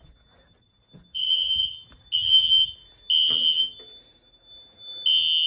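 Fire alarm sounding a high, shrill beep in the three-beep temporal pattern, three beeps, a pause, then the next group starting near the end. A smoke detector set off in a system test has put the system into alarm.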